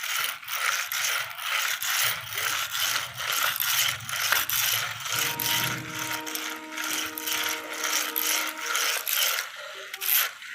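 Plastic toy vehicles clicking and rattling rapidly, like a ratchet, as they are handled. Midway a steady electronic tone with several pitches sounds for about four seconds.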